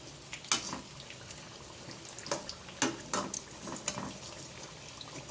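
Sweet potato chunks frying in oil with melting sugar: a steady bubbling sizzle broken by irregular sharp pops and crackles as the sugar starts to coat the kamote.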